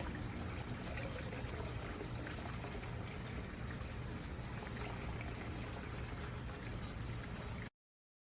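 A stream running, with a steady babbling and trickling of water that cuts off suddenly near the end.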